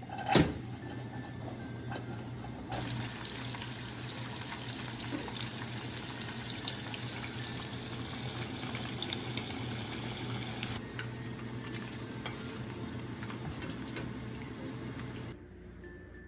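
Hot oil sizzling and crackling as battered shrimp deep-fry, in a few short clips cut together, with a steady low hum underneath. There is a sharp knock about half a second in.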